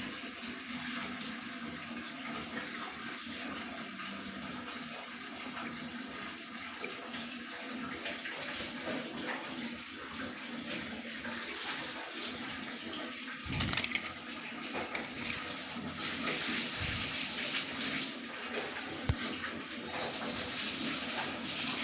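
Sewing-machine motor rigged as a grinder, running steadily with a continuous hiss and a faint steady hum, and a short knock about halfway through.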